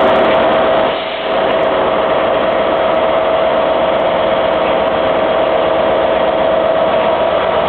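Class 67 diesel locomotive's EMD two-stroke V12 engine running loudly as it starts to pull a rake of coaches away, with a steady high whine held over the engine noise. The sound dips briefly about a second in.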